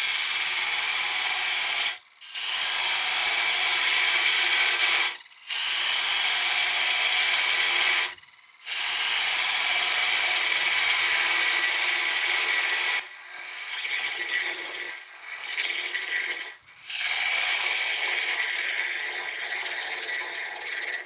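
Turning tool cutting into wood spinning on a lathe, taking timber off in six passes with brief pauses between them: a steady scraping hiss, quieter for a few seconds past the middle.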